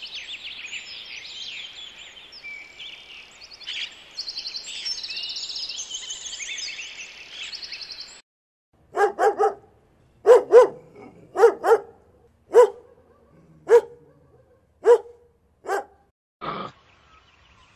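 Birds chirping and twittering busily for about eight seconds. Then a dog barks about a dozen times, roughly once a second, some barks in quick pairs.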